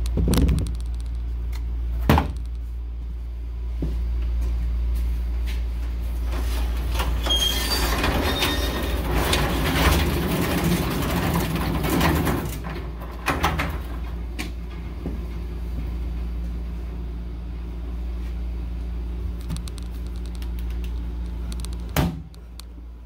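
Old sectional steel garage door being raised by hand, its rollers rumbling and squeaking along the tracks for several seconds, over a steady low hum. A few sharp knocks sound near the start and the end.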